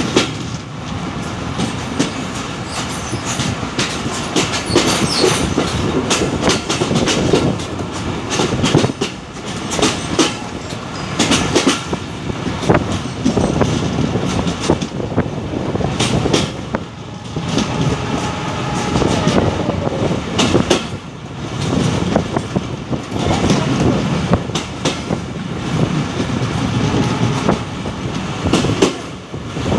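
Passenger train coaches running along the track, heard from a coach window: a continuous rumble of wheels on rail, with irregular clicks and clacks of the wheels over rail joints.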